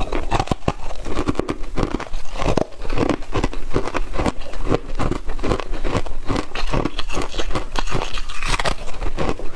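Hard ice being crunched and chewed close to a clip-on microphone: many sharp cracks in quick succession, with a fresh bite into a moulded ice disc near the end.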